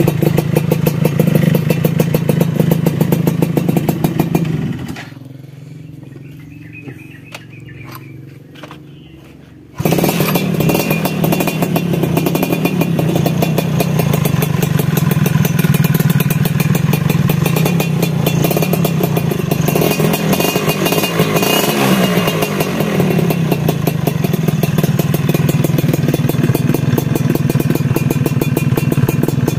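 Two-stroke single-cylinder Suzuki Tornado motorcycle engine running through a standard-look racing exhaust, a steady buzzing exhaust note with quick firing pulses. About five seconds in the sound drops much quieter for about five seconds, then comes back suddenly at full level, with small rises and falls in engine speed later on.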